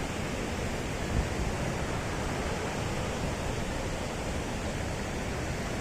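Steady rush of a large fast-flowing stream, an even hiss of water, with wind rumbling unevenly on the microphone.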